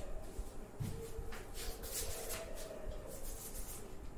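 Duster and chalk on a chalkboard: a series of short rubbing and scraping strokes as a line is wiped off the board and writing begins.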